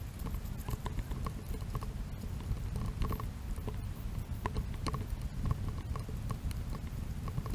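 Hiker's footsteps on a dirt trail, sped up so the steps come quickly, about three light crunching clicks a second, over a steady low rumble.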